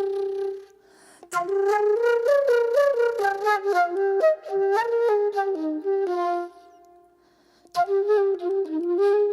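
A flute-like wind instrument plays a quick melody of short stepping notes. A held note at the start cuts off, then two fast phrases follow, split by a gap of about a second from six and a half seconds in.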